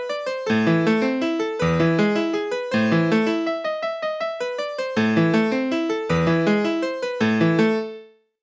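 Kyocera Koi mobile phone ringtone: a polyphonic electric-piano-style melody of quick repeated notes over a bass line, fading out near the end.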